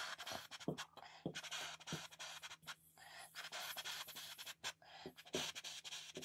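Felt-tip marker drawing on a whiteboard: faint, scratchy strokes that come and go with short pauses between lines, with a few small taps of the pen tip.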